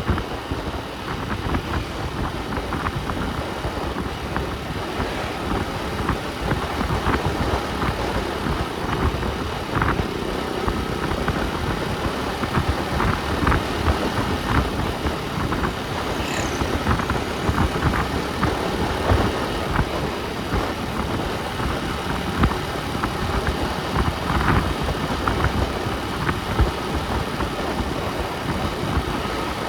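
A motor vehicle driving, with a steady engine and road rumble and frequent small knocks and rattles. There is a brief high squeak about halfway through.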